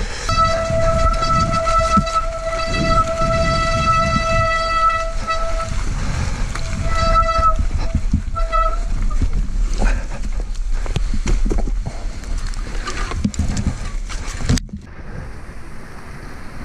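Mountain bike disc brakes squealing in a steady honking tone for about five and a half seconds, then in two short bursts about a second apart, over the rumble and rattle of tyres on a snowy trail.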